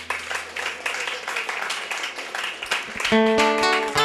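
Audience clapping in applause. About three seconds in, a strummed acoustic guitar chord rings out.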